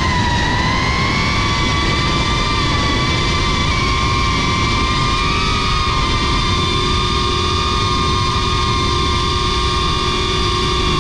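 Cinelog 35 cinewhoop FPV quadcopter's brushless motors and ducted propellers whining steadily in flight, the pitch shifting slightly with the throttle.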